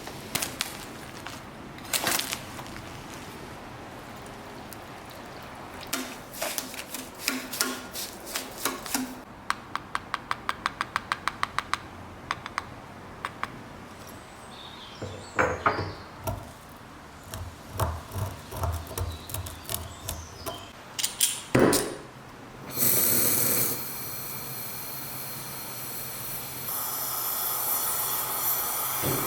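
Workshop hand-work sounds: scattered metallic clicks, a fast even run of clicks about ten seconds in, and a cluster of knocks. About three-quarters of the way through, a steady hiss starts and runs on.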